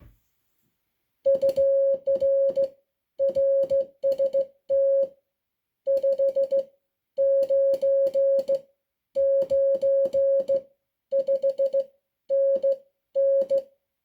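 Morse code sent on a NATO Morse key through a sidetone oscillator: a single steady beep keyed on and off in short dots and longer dashes, grouped into characters with short gaps between them. A faint click marks each keying of an element.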